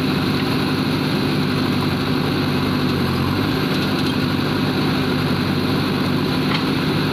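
JCB backhoe loader's diesel engine running steadily while the backhoe arm digs, its note shifting slightly about three seconds in, with a light click near the end.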